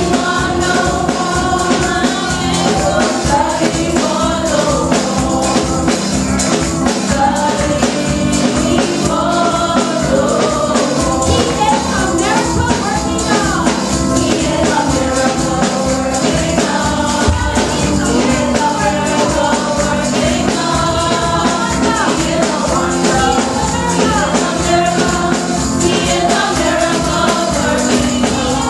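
Gospel song sung by a church congregation, several tambourines shaken and struck in a steady rhythm, over instrumental backing.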